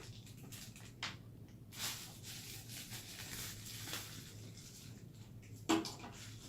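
Rustling and light clicks of kit parts being handled and taken out of their packaging, with a stretch of rustling in the middle and a brief louder sound near the end.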